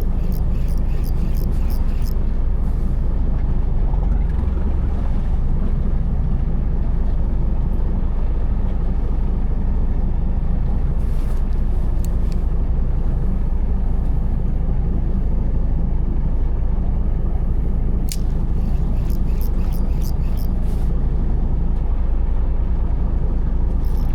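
Fishing boat's engine running steadily at low revs, a constant low rumble. A quick run of light clicks comes near the start and again about eighteen seconds in.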